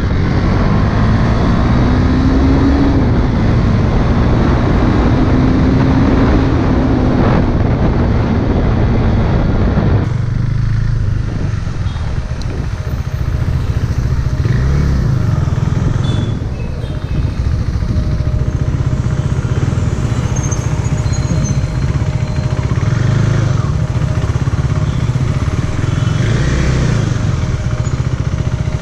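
KTM Duke's single-cylinder engine running under a rider's camera, with heavy wind rush at road speed and the engine note gliding slowly. About ten seconds in the wind drops away as the bike slows, leaving the engine's low rumble, which rises and falls a few times with the throttle.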